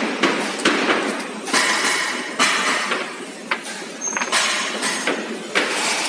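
Irregular clicks and clinks of small parts being handled and fitted at a coil-winding machine, with short hissing bursts over steady workshop background noise.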